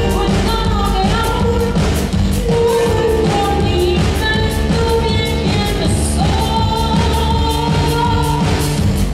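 Live band playing with a woman singing held, melodic lines over a steady drum beat and bass.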